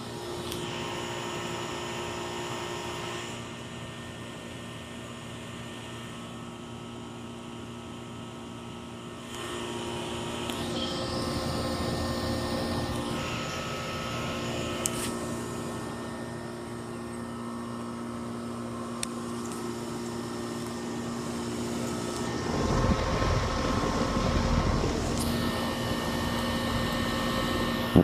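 Goodman heat pump's outdoor unit running: a steady hum with whooshing fan noise, and a spell of louder low rumble about three-quarters of the way through.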